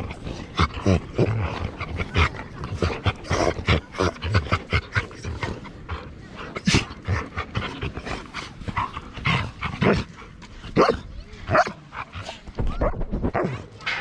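Two dogs play-fighting, a fast, unbroken run of short yips, barks and whines as one grips the other's neck and the other snaps back.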